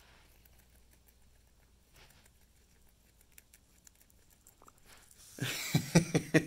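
Guinea pigs nibbling greens, faint soft ticks of chewing. About five seconds in, loud rapid rustling and knocking right at the microphone.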